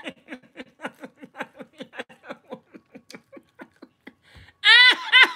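A woman laughing: a long run of short pitched laughs, about five a second, fading away, then a louder burst of laughter near the end.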